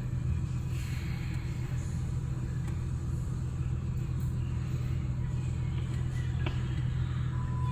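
Steady low mechanical hum, with a faint click about six and a half seconds in and a brief high beep near the end.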